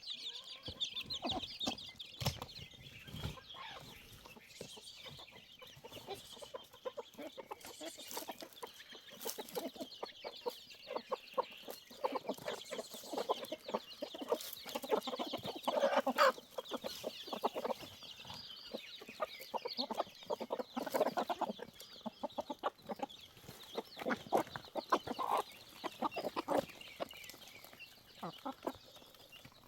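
Chickens clucking on and off, a string of short calls that are loudest about halfway through.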